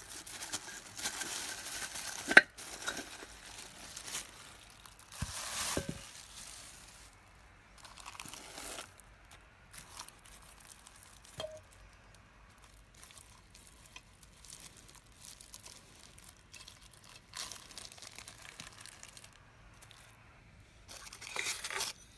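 Clear plastic bags crinkling and rustling in bursts as a camping cookware set of metal pots and stainless steel cups is handled and unwrapped. There is one sharp clink about two seconds in and a few lighter knocks of metal.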